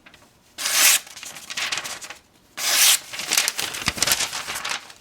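Freshly sharpened Gerber Gator 154CM knife blade slicing through paper: two loud slicing strokes, one about half a second in and one just before three seconds, with quieter scratchy cutting noise between them.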